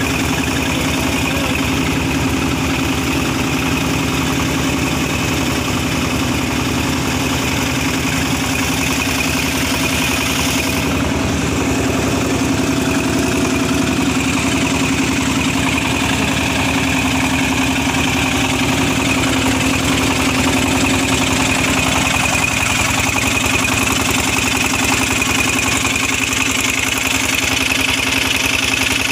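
Engine of a sludge suction pump running steadily, pumping mud out of a water-intake basin.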